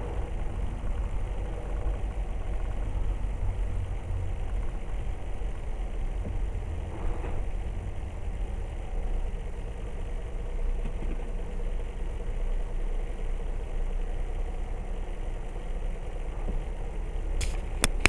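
Steady low engine rumble inside a truck cab creeping along in stop-and-go traffic. A couple of short sharp clicks come near the end.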